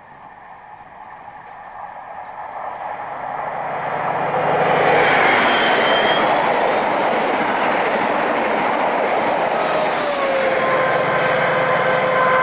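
InterCity 125 High Speed Train (HST) diesel power car approaching and passing at speed. It grows steadily louder over the first five seconds or so into a loud rush of engine and wheel noise, with a steady engine whine. A tone drops in pitch about ten seconds in.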